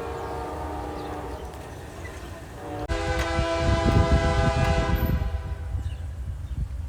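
Diesel freight locomotive's air horn: a held chord fading out over the first couple of seconds, then a fresh, louder blast about three seconds in that lasts about two seconds. A low rumble from the train builds under the second blast and carries on after it.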